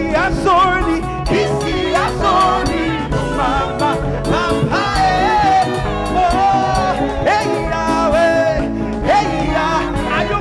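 Live gospel praise music: a band with drums plays an upbeat, steady rhythm while a singer's voice glides through long held notes.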